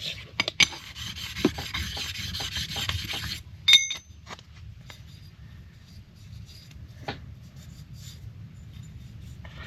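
An oiled sharpening stone rubbed back and forth over the reed plate's metal gasket surface, a rasping scrape taking off leftover gasket and flattening it. The scraping stops after about three and a half seconds, a single ringing metallic clink follows, then only faint light clicks of handling.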